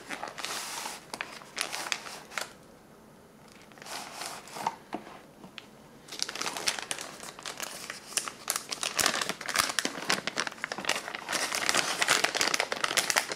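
Wet plastic flameless-ration-heater bag and cardboard sleeve being handled and crinkled as the heated MRE chicken stew pouch is pulled out. Rustling for the first two seconds, a quieter pause, then steady dense crinkling of the plastic from about six seconds in.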